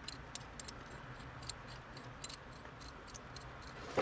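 Faint, scattered light metallic clicks and ticks of hand tools working on puller bolts as they are tightened down.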